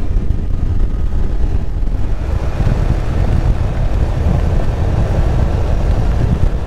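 Side-by-side UTV driving along a gravel dirt road, heard from its open cab: engine and tyres make a loud, steady low rumble.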